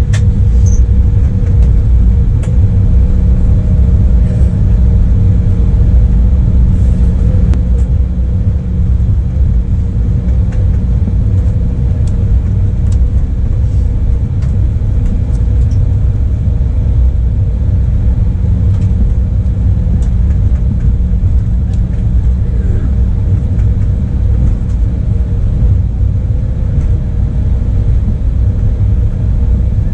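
Cabin noise inside an Embraer E175 regional jet: a steady low rumble with a constant hum from its GE CF34 turbofan engines, and a few faint rattles.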